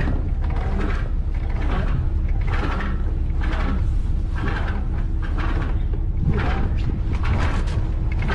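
Wind rumbling on the microphone aboard a schooner under sail, with irregular creaks and rattles from the rigging and gear.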